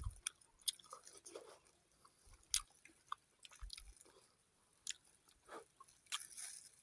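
A person chewing and biting fresh fruit: faint, irregular wet crunches and mouth clicks.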